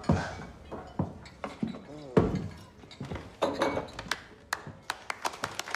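Scattered knocks and clinks of glass and wood, then a few people clapping by hand, starting about four and a half seconds in and growing denser toward the end.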